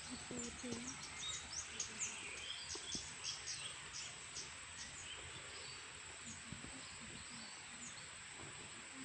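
Small birds chirping: a quick run of short, high, downward-sliding chirps through the first few seconds, then scattered calls, over a steady outdoor hiss.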